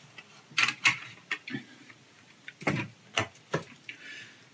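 Injection-moulded plastic model-kit parts knocking and clicking as they are handled in a cardboard box: about half a dozen sharp separate clicks. About four seconds in comes a brief rustle of a clear plastic bag of sprues.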